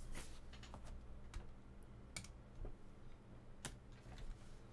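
A handful of sharp, light clicks and taps at uneven intervals over a faint, steady low hum.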